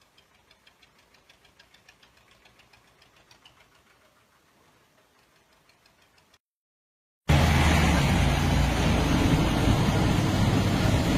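Faint, regular ticking of about four to five beats a second, then after a short break loud tractor diesel engines running hard under heavy load in a tug of war, a steady low rumble.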